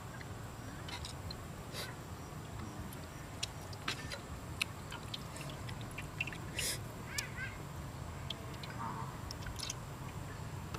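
Small clicks and taps of a metal spoon against an egg and the steel wok as the egg is broken open, over a steady low rumble. A short bird call about seven seconds in.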